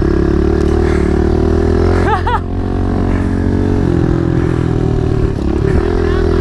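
Kawasaki KLX110 pit bike's small air-cooled four-stroke single-cylinder engine running as it is ridden, its pitch dipping and rising with the throttle. There is a short high wavering sound about two seconds in.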